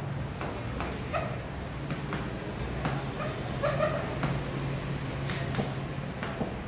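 A stylus tapping and scraping on the glass face of an interactive smart board as words are written, over a steady low hum. Two short high squeaks stand out, about a second in and again past three and a half seconds.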